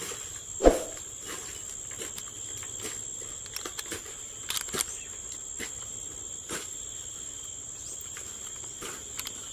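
Insects calling in a steady, high, even drone. A single thump comes just under a second in, and a few light clicks follow around the middle as a bolt and nut are handled.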